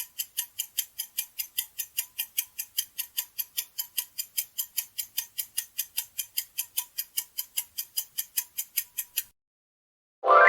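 Countdown-timer ticking sound effect, evenly spaced at about four ticks a second, stopping about a second before the end. A loud ringing tone starts just at the end.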